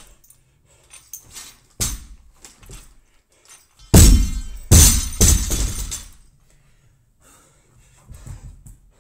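Barbell loaded with bumper plates dropped from overhead onto a rubber gym floor. It lands with a loud crash about four seconds in, bounces twice more and rattles to rest.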